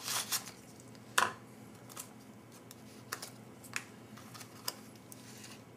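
Scattered crinkles and clicks from handling a freshly slit-open MRE foil retort pouch, with one sharper click about a second in.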